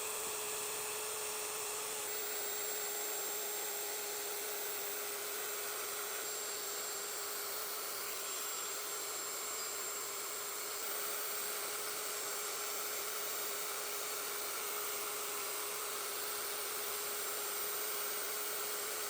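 Router fitted with a fine CNC detail bit running at a steady high speed, cutting fine detail into pallet wood: a constant motor whine over a steady cutting hiss.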